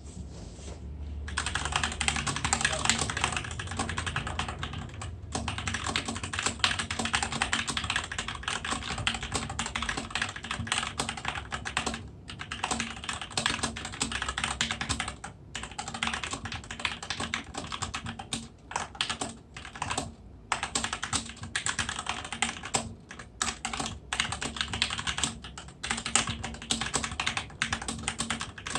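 Fast typing on a SteelSeries Apex M750 TKL mechanical keyboard with QX2 Red linear switches: rapid runs of keystrokes starting about a second in, broken by a few brief pauses.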